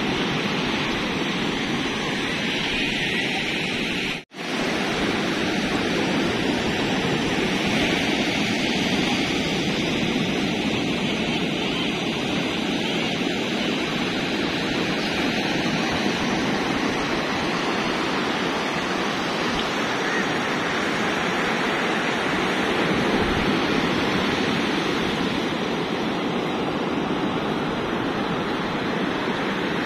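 Surf breaking on a sandy beach: a steady rush of waves, with the sound dropping out for a split second about four seconds in.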